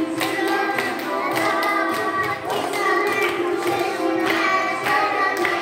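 A children's song plays with singing, and a group of small children clap their hands along to it.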